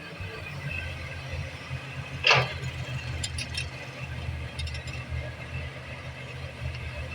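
Excavator diesel engine running steadily, with one short, loud burst of hiss about two seconds in and a few light ticks after it.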